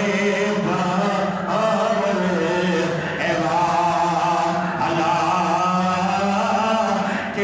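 A man chanting in a drawn-out, melodic voice, holding long wavering notes into a microphone.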